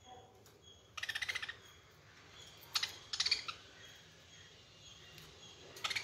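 Caged budgerigars giving short, rapid chattering chirps: a half-second burst about a second in, two more around three seconds, and another near the end.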